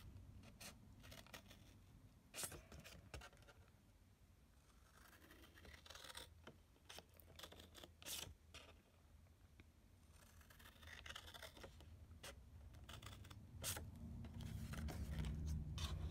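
Large scissors snipping through scored cardstock in a series of short, separate cuts, with paper rustling between them. A low handling rumble grows louder near the end.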